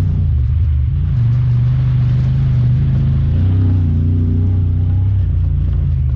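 Honda Talon 1000R side-by-side's parallel-twin engine running under way, its note rising and falling a little with the throttle.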